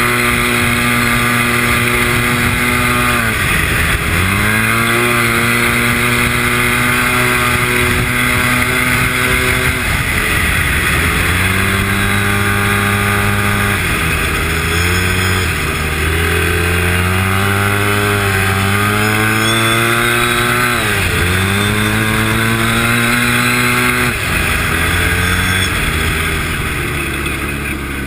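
Boosted Arctic Cat Z1 Turbo snowmobile's turbocharged three-cylinder four-stroke engine running hard at trail speed. Its pitch drops sharply about six times as the throttle is eased and climbs again as it is pinned back on.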